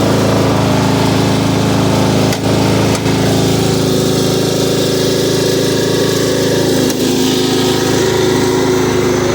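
Riding lawn mower's small engine running steadily as the mower is driven off, with two brief clicks about two and a half and three seconds in.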